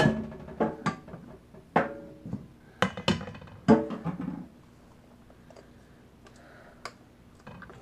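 Stainless steel mixing bowls and a strainer being knocked and set down against each other at a kitchen counter and sink: about five sharp clanks in the first four seconds, each ringing briefly, then only a few faint ticks.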